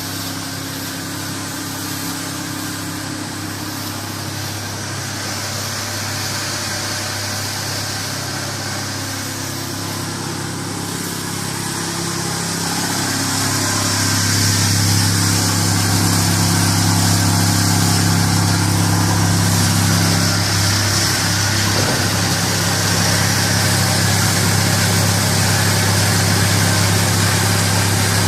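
Auger conveyor and filling machinery running under electric drive, a steady mechanical hum that grows louder about halfway through and then holds steady, as the conveyor automatically refills the filler hopper after a bag fill.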